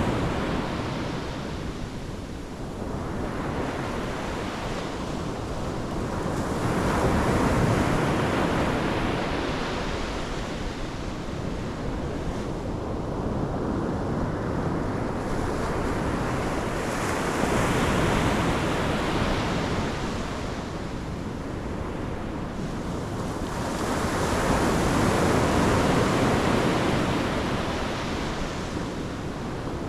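Pacific Ocean surf breaking on the shore, the wash swelling and falling back about every eight to ten seconds, with three big surges. Wind buffets the microphone.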